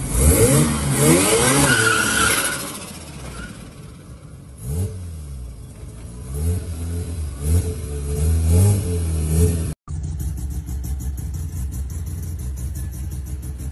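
First-generation Mazda RX-7's rotary engine revved in repeated quick blips, the pitch climbing and falling each time, loudest in the first few seconds and then in a run of smaller blips. After a short drop-out about ten seconds in, it settles to a steady idle.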